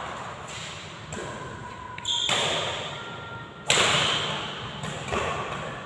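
Badminton rackets striking a shuttlecock in a fast rally, about five sharp hits roughly a second apart, the loudest a little past halfway, each ringing on in the echo of a large hall.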